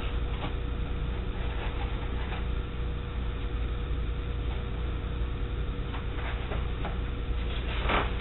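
A steady low hum and hiss under a faint steady tone, with a few brief soft rustles as a book and a paper note are handled. The strongest rustle comes near the end.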